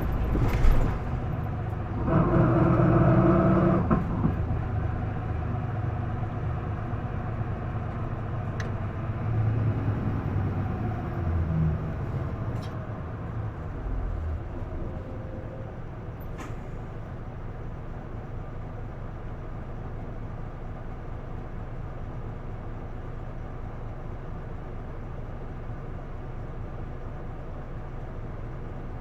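Isuzu PDG-LV234L2 city bus's diesel engine heard from inside the cabin, running and shifting in pitch through the first half, then settling to a steady idle. A louder, pitched sound comes about two to four seconds in, and a few sharp clicks are heard.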